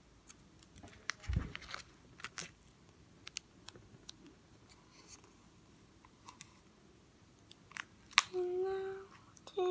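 Scattered light crinkles and clicks of sticky-note paper being handled and wrapped around a cardboard toilet-paper tube, with a low thump about a second in. Near the end a child sings a few short, steady notes.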